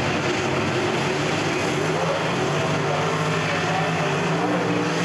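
Drag car's V8 engine running loud and hard through a burnout, its rear tyres spinning on the track.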